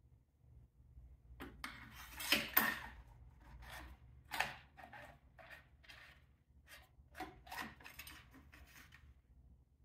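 Handling noises from an oil-level check on the snowblower engine: a string of irregular rubs, scrapes and small clicks as the plastic dipstick is wiped with a paper towel and worked in and out of the oil fill tube. It starts about a second and a half in, is loudest about two and a half seconds in, and dies away near the end.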